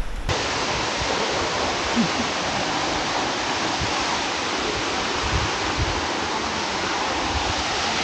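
Jeongbang Waterfall's falling water: a steady, even rush that cuts in abruptly at the start.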